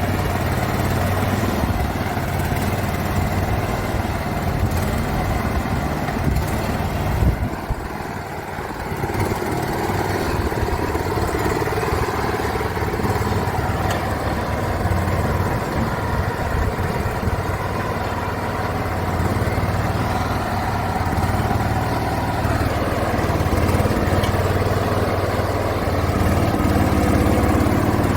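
Road roller's engine running steadily at idle, with one short thud about seven seconds in and a brief drop in level just after.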